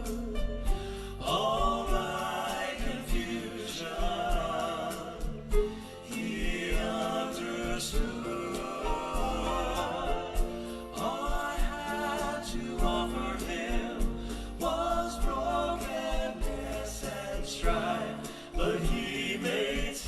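Southern gospel song: voices singing in long held phrases over musical accompaniment.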